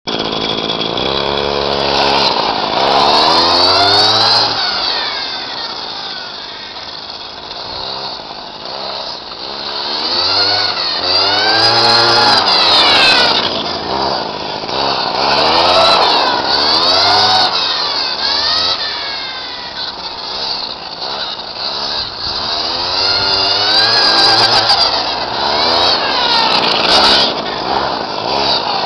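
A small 25cc brushcutter engine driving a homemade RC buggy, revving up and down over and over so its pitch keeps sweeping high and dropping back. It grows louder and quieter as the car moves about, with its throttle opening only about two-thirds of the way.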